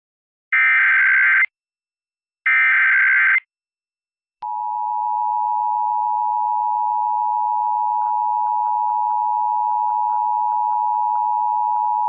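Emergency Alert System tones on a radio broadcast: two one-second squawks of the digital SAME header code, a second apart, then about four and a half seconds in the steady two-tone EAS attention signal begins and holds.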